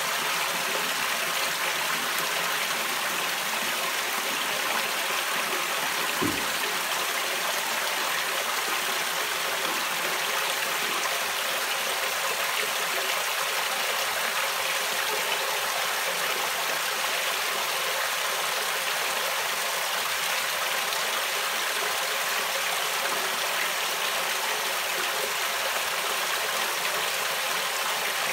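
Steady rush of pumped water pouring onto and draining through a homemade fleece (Vlies) filter for a koi pond. A single soft knock about six seconds in.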